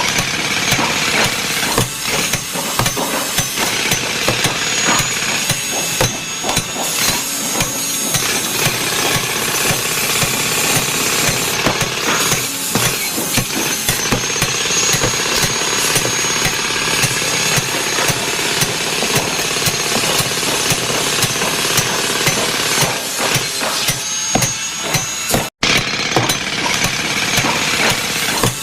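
Loud, continuous heavy-machinery noise, a mechanical din full of rapid clattering knocks, with a brief break about 25 seconds in.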